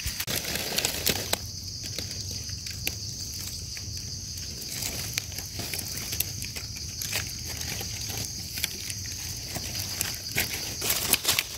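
Steady high-pitched insect chorus with scattered short rustles and crackles of dry leaf litter being disturbed, loudest near the end.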